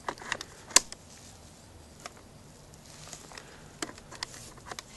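Small sharp clicks and knocks as a Neutrik twist-lock plug is pushed into its panel socket on an aluminium case. The sharpest click comes about three-quarters of a second in, with a few lighter ones near the end.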